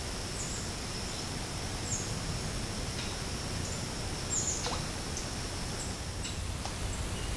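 Swamp ambience through a trail camera's microphone: a few short, high bird chirps scattered over a steady high-pitched tone and a low, even hiss.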